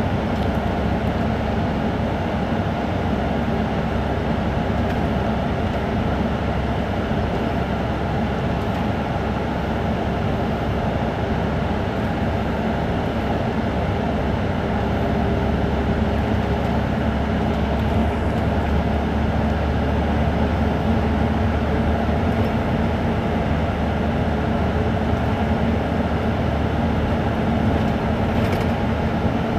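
Isuzu Turquoise midibus's diesel engine idling steadily with the bus standing still, a constant low drone with a steady hum on top.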